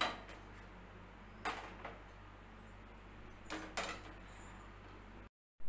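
Stainless steel plates being moved and set down on a gas stove top: a few light metal knocks and scrapes, about one and a half seconds in and again around three and a half seconds, over a low steady hum.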